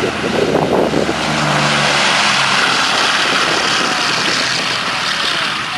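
The four radial engines of a Boeing B-17 Flying Fortress running at takeoff power as the bomber passes close on its takeoff run. The sound swells from about a second in, is loudest two to three seconds in, then eases as the plane pulls away.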